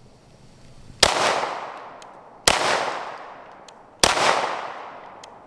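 Three shots from a Smith & Wesson SD9 2.0 9mm pistol, about a second and a half apart, each followed by a long fading echo.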